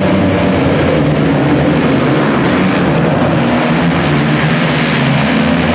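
A pack of flat track racing motorcycles running at speed on a dirt oval: a loud, steady drone of several engines together.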